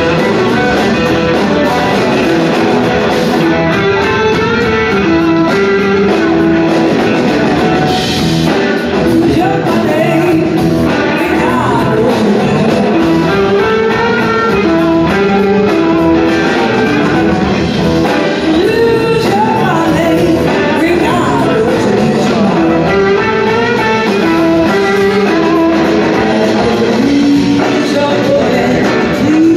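Live blues-rock band playing: electric guitars over two drum kits, recorded from the audience.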